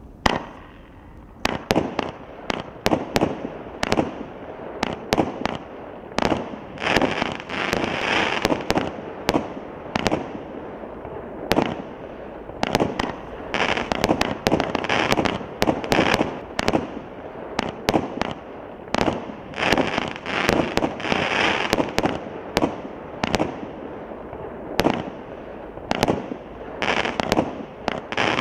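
Tai Pan 'Evils Edge' 40-shot firework cake firing a rapid string of shots, each a sharp bang of a launch or star burst, coming about one to two a second. Between the bangs, crackling stars fill several stretches.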